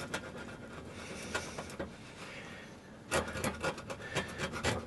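Screwdriver blade scraping old paint off a metal mini lathe part clamped in a vise: scattered scratchy strokes, then a quick run of scrapes from about three seconds in.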